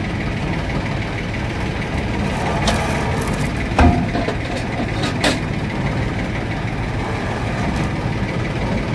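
An engine idling steadily, with a few sharp knocks about four and five seconds in as borewell pipes are dragged and shifted on a truck bed.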